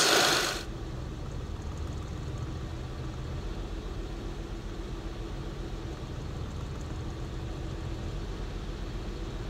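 2006 Acura TL's 3.2-litre V6 idling steadily, heard from inside the cabin, with the cylinder 4 ignition coil pack unplugged: that cylinder is dead, so the engine runs less smoothly and at lower RPM, the response that shows the coil and injector were working.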